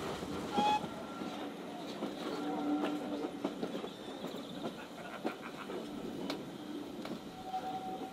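Railway coaches rolling slowly along the track, heard from a carriage window: a steady rumble with irregular clicks and knocks from the wheels, and short thin squeals from the wheels, a longer one near the end.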